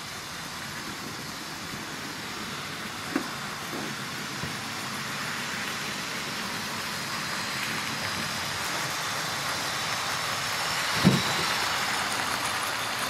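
Tri-ang Hornby 9F model steam locomotives with tender-drive motors running on the track: a steady whirring of motor and wheels on the rails that slowly grows louder as a train comes closer. A short click about three seconds in and a louder knock about eleven seconds in.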